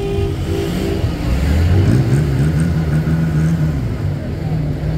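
A vehicle engine revs up about a second and a half in, then holds a steady raised pitch. In the first second a held tone sounds and breaks up.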